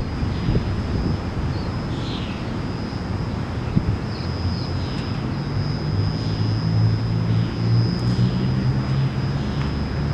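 Low engine drone, growing stronger and more even in pitch about halfway through, with a faint steady high-pitched whine above it.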